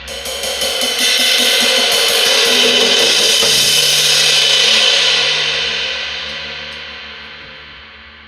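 18-inch Istanbul traditional crash cymbal struck repeatedly, building into a loud, bright, sustained wash. It is then left to ring out, fading away slowly over the last three seconds.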